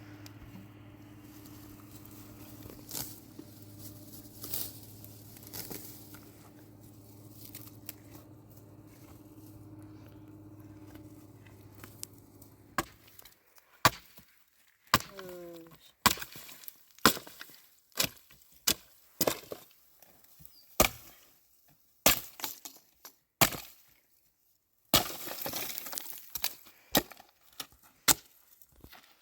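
A steady low hum that cuts off about thirteen seconds in, followed by a series of sharp knocks or strikes, roughly one a second, with short pauses between runs.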